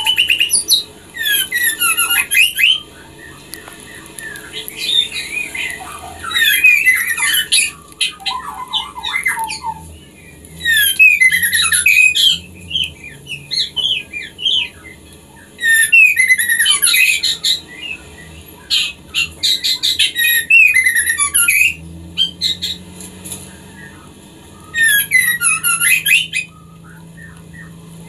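Female white-rumped shama calling in breeding condition, a call used to draw a male to mate: about nine bursts of rapid, twisting high notes, each a second or two long, a few seconds apart.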